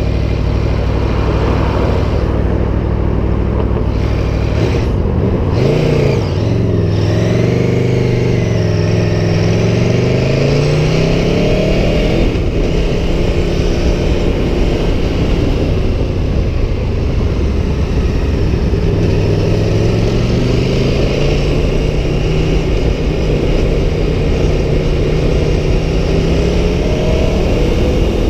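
Aprilia Tuono 1100 Factory's V4 engine running under way, revs rising and falling: a dip and quick rise about five to six seconds in, a climb in pitch from about eight to twelve seconds, then a steadier stretch and another slow climb from about twenty seconds.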